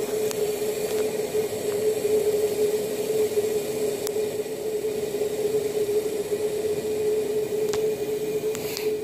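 MSR Reactor canister stove burning under its pot of warm water: a steady gas hiss with a steady hum running through it, and a few faint ticks. The water is heating toward a boil.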